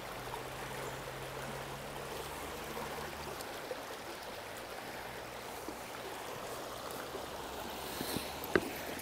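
Shallow river water running steadily over rocks in a riffle. A single sharp click sounds near the end.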